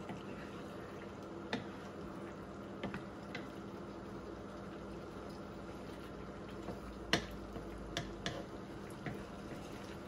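Chicken livers simmering in adobo sauce in a frying pan, a steady bubbling, while a wooden spatula stirs and knocks against the pan in scattered sharp clicks, the sharpest about seven seconds in.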